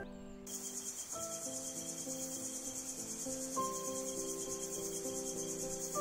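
A dense chorus of insects trilling rapidly and high-pitched, starting about half a second in, over soft background music of slow, sustained notes.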